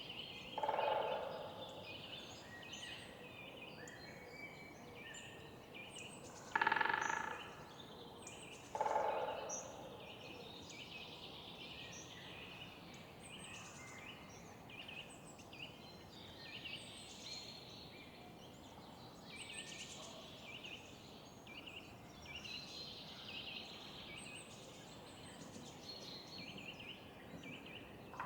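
Small birds singing and chirping continuously in a park. A larger bird gives a louder, lower call three times, about a second in, about seven seconds in and about nine seconds in.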